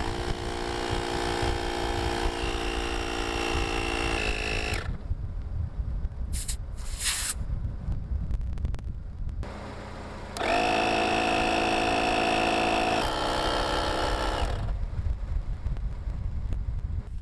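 A small electric air compressor runs steadily with a whining hum for about five seconds, stepping in pitch just before it stops. Two short hisses of air follow a couple of seconds later, then the compressor runs again for about four seconds, its pitch shifting partway through.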